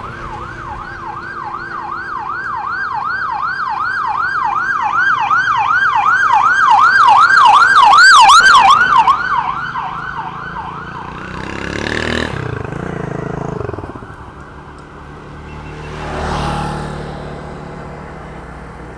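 Police escort vehicle's siren in a fast yelp of about three sweeps a second. It grows louder as it comes up, passes about eight seconds in, and fades out. Two more vehicles then pass by, around twelve and sixteen seconds in.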